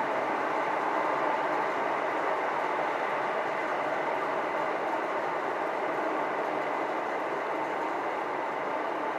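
Steady running noise of a moving electric passenger train heard from inside the carriage, an even rumble and hiss without distinct clicks.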